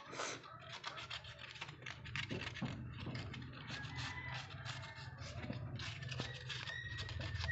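A small metal trowel and fingers scraping and rubbing across a cement surface in many quick, irregular strokes.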